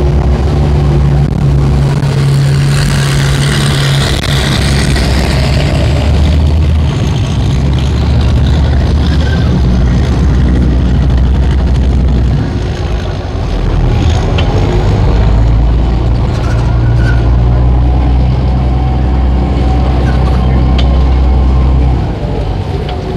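River shuttle boat's engine running with a steady low drone. It eases off briefly about halfway through and again near the end as the boat manoeuvres past the piers.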